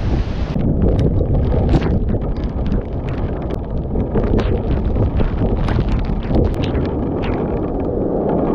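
Storm wind buffeting the microphone of a GoPro mounted on a Jeep's roof: a steady low rumbling noise with irregular sharp ticks scattered through it.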